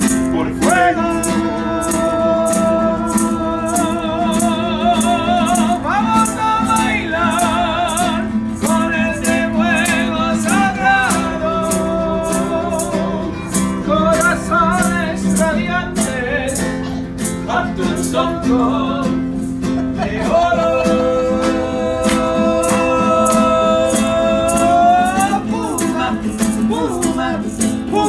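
Two men's voices singing long held, wavering notes together, over a strummed acoustic classical guitar and a wooden maraca shaken in a steady beat.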